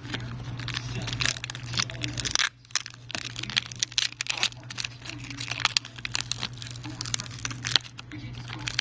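Thin clear plastic film crinkling and crackling in quick, irregular snaps as it is peeled back and handled by hand. A steady low hum runs underneath.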